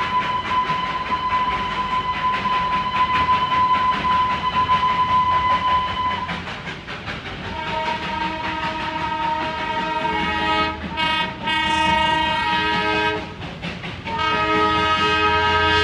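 Darjeeling Himalayan Railway steam train running with a close, rapid beat, first under a single steady high tone for about six seconds. Then a chord of several tones sounds together in broken stretches.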